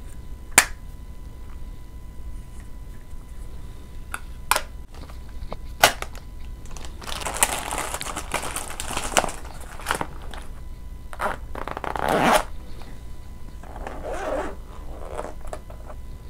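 Makeup packaging handled for ASMR. A small plastic compact gives three sharp clicks, the first about half a second in. Then a pink cosmetic pouch is rustled and crinkled in several stretches, loudest about twelve seconds in.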